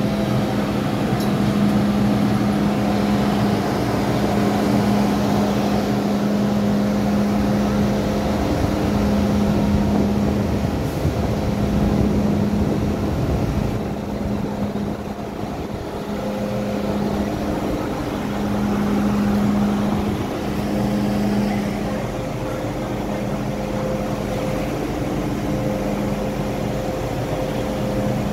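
MTR M-Train electric multiple unit heard from inside the car: a steady rumble with a constant low hum over it.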